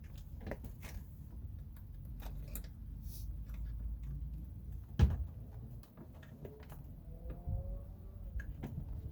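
Scattered small clicks and taps of hands and tools working on a car door, with one sharp knock about halfway through.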